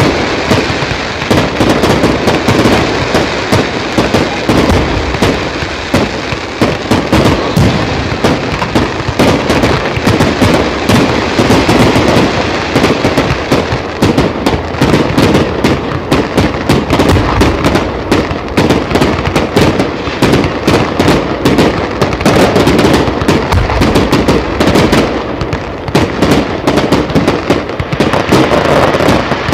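Fireworks display: a rapid, unbroken barrage of aerial shell bangs and crackling, the reports following one another too fast to count.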